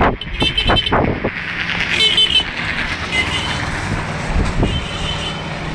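Vehicle running noise: a steady rumble with a few sharp clattering knocks near the start and short high squeals, with people's voices.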